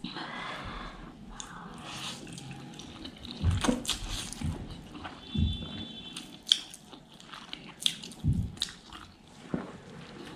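Ghost pepper noodles being eaten with chopsticks: irregular chewing and biting sounds with small wet clicks and smacks close to the microphone.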